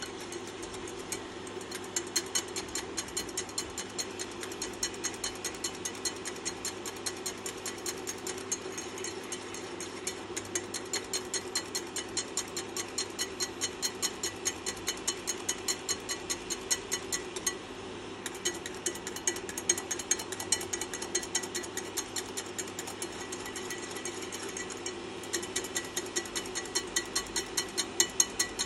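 A wire whisk beating a frothy pea-protein mixture in a nonstick saucepan: the wires tick against the pan at about four strokes a second, with a short break a little past the middle, over a steady low hum.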